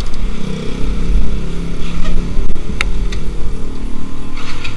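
Motorcycle engine running as the bike pulls away slowly, its pitch rising and falling with the throttle. A single sharp click about three seconds in.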